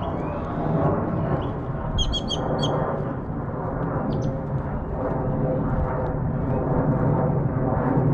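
Outdoor park ambience: a steady low background din, with a bird chirping four or five times in quick succession about two seconds in.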